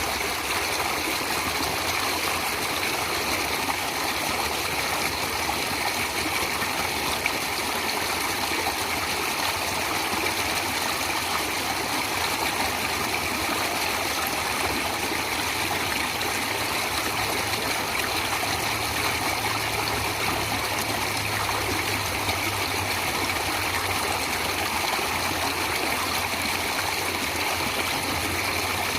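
Stream water running with a steady, even rush. A low steady hum joins in a little past halfway.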